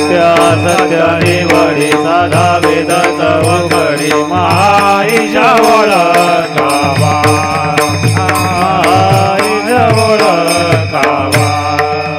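Devotional kirtan music: a man singing a long, ornamented line with gliding pitch over a steady drone, with the regular clash of small brass hand cymbals (taal) and repeated low beats keeping time.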